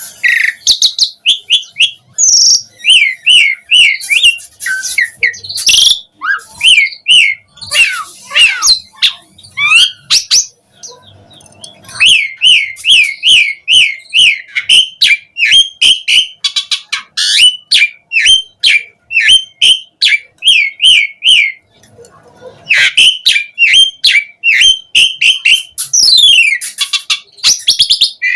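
Asian pied starling (jalak suren) singing a loud, varied song: fast runs of repeated chirps mixed with whistles and harsh rasping notes, with two short pauses.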